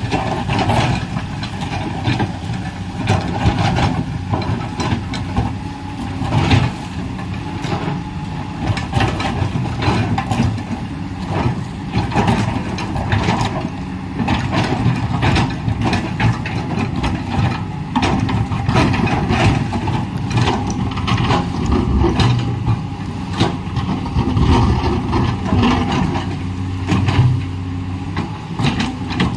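Komatsu PC210LC excavator's diesel engine running steadily while the machine works, with frequent irregular knocks and clanks throughout.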